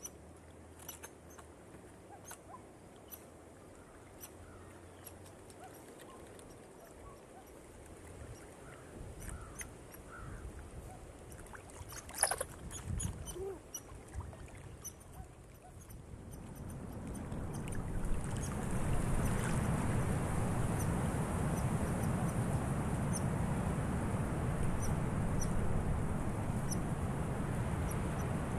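Wind rustling dry autumn leaves. At first it is a quiet bed with scattered light crackles and ticks. About two-thirds of the way through, a gust swells into a steady, louder rustling rush that holds.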